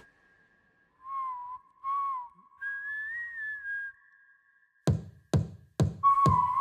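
A whistled pop melody: two short rising-and-falling notes, then a longer wavering phrase a little higher. After a pause, four sharp percussive hits come about half a second apart, and a whistled note returns near the end.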